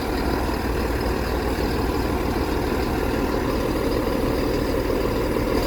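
Diesel multiple unit train idling steadily at the platform, a constant low engine rumble.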